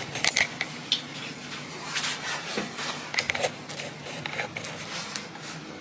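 Small hard objects clinking and knocking as things are handled, a run of irregular sharp clicks and clatters.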